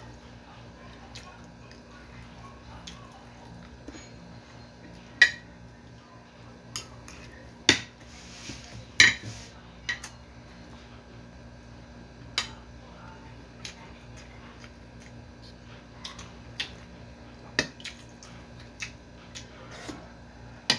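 Metal spoon and fork clinking and scraping against a plate of rice while eating, in scattered sharp clinks with a short scrape about eight seconds in, over a faint steady hum.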